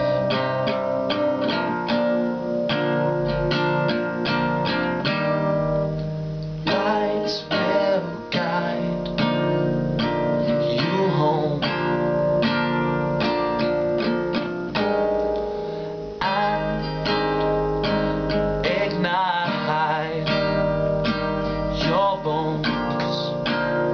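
Nylon-string classical guitar with a capo, strummed in a steady rhythm of chords.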